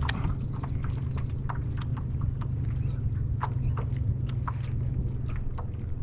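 Steady low rumble with irregular light clicks and taps, a few a second, as a hooked speckled trout is reeled in on rod and reel from a kayak.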